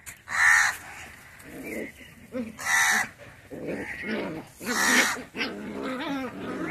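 Three loud animal calls, each under a second long and about two seconds apart.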